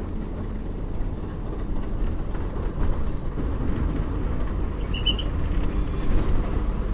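Steady low rumble of a bus's engine and tyres on the road, heard from inside the moving bus, with a brief high chirp about five seconds in.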